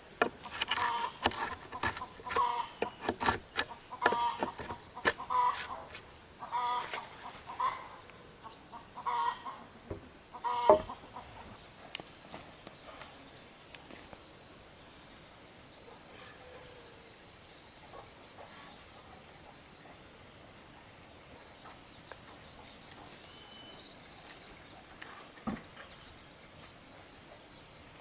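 Chickens clucking in short repeated calls for roughly the first ten seconds, over a steady high drone of insects that carries on throughout.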